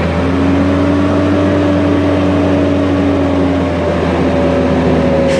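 Hyster H60XM forklift's propane engine revved up and held at a steady high speed while the hydraulic lift raises the mast and forks, easing back down near the end.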